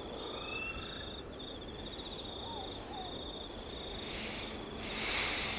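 Night-time ambience: a cricket trilling in repeated pulsed bursts, with a few short whistling bird calls near the start. A soft rush of noise swells and fades about four to five seconds in.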